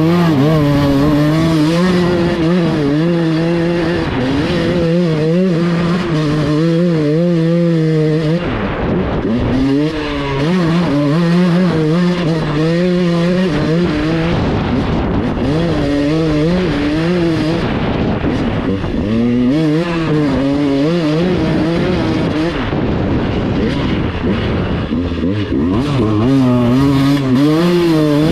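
Dirt bike engine running while being ridden, revs rising and falling over and over.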